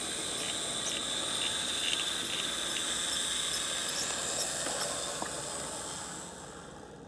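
HO-scale model steam locomotive running on its track: a steady high electric-motor whine and hiss of the mechanism and wheels on the rails, with a few light clicks. The whine fades away near the end.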